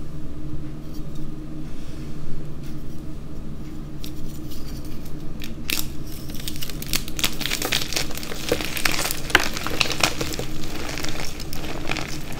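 A blue reformed gym-chalk block being snapped apart by hand with a sharp crack about halfway through, then crushed and crumbled between the fingers in a dense run of crunches and crackles.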